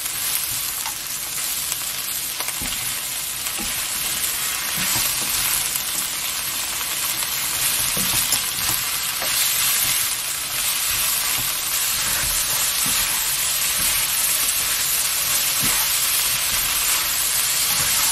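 Small chilge crabs sizzling steadily as they stir-fry in plenty of oil in a nonstick wok, with scattered clicks and scrapes from a silicone spatula turning them. This is the long stir-fry that cooks the crabs through.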